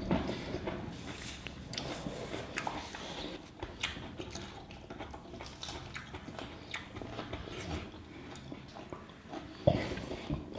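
Close-up eating sounds of chicken and egg curry with rice: wet chewing and lip smacks, irregular and ongoing, with one louder knock near the end.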